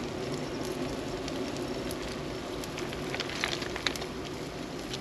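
Campfire crackling over a steady hiss, with scattered small pops.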